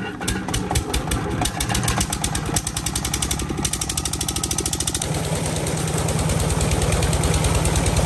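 Stationary diesel engine of a tube-well pump catching and picking up speed, its firing knocks quickening into a fast, steady chug. From about five seconds in, water rushing out of the pump's discharge pipe joins the engine.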